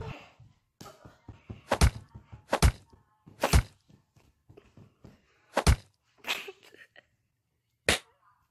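A series of sharp thunks and knocks: five loud ones, unevenly spaced, with fainter taps and a brief scuffle between them.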